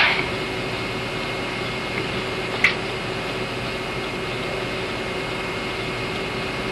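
Steady hiss and hum of an old home-video recording, with one brief short sound about two and a half seconds in.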